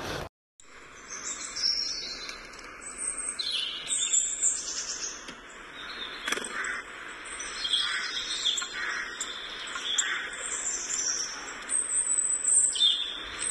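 Small birds chirping: short, high calls scattered throughout, over a faint steady hiss.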